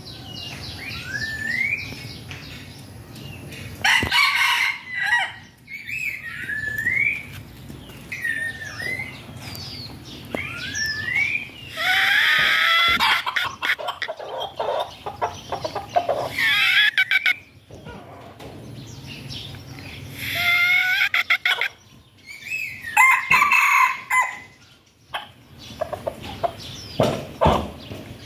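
Rooster crowing repeatedly, about five crows, the longest and loudest about twelve seconds in. Short rising chirps of small birds come in between.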